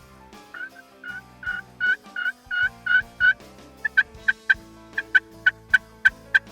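Turkey yelping: a run of about eight even yelps, then about ten shorter, sharper notes in quicker succession.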